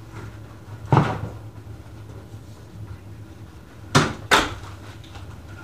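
Three sharp clunks, one about a second in and two close together near four seconds in, over a steady low hum.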